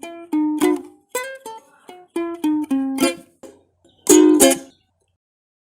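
Instrumental ending of a children's song: a run of short plucked notes, then a louder final chord about four seconds in that dies away.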